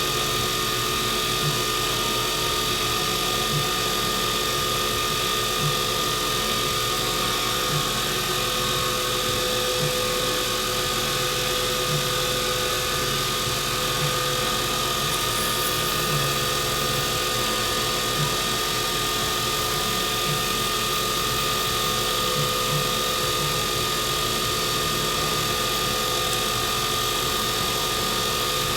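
Wood lathe running steadily with a pen blank mounted, its motor giving a constant whine with a faint tick about every two seconds.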